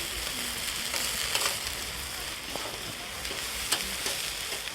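Food frying on a hot cooking surface: a steady sizzle with a few light clicks.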